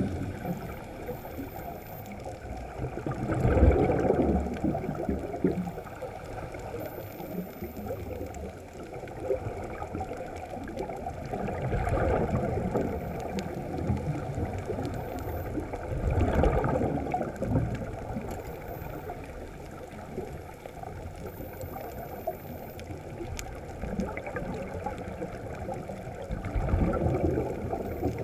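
Exhaled bubbles from snuba divers' regulators gurgling and rushing underwater, swelling louder every few seconds with each breath out.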